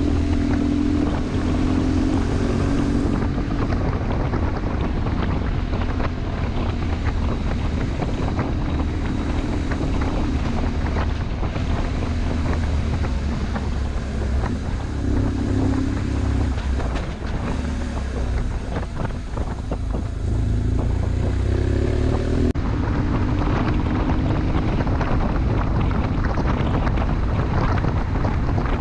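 BMW R1150 GS Adventure's boxer twin running under way, its engine note stepping up and down in pitch several times with throttle and gear changes, under heavy wind noise on the microphone.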